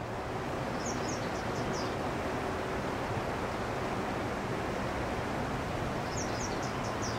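Steady outdoor background noise, with a small bird giving a quick run of about five high chirps about a second in and again near the end.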